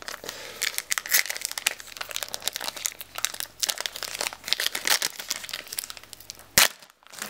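Foil trading-card booster pack wrapper crinkling and crackling as it is handled and opened, with one sharp crackle near the end.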